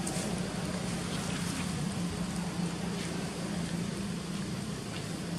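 A steady low mechanical hum, like a motor running, over a broad background hiss, with a few faint scattered ticks.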